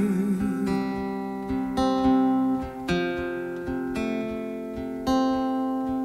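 Acoustic guitar strumming slow chords, a stroke about once a second with each chord ringing out, over the sustained backing of a small worship band. A held sung note trails off in the first half-second.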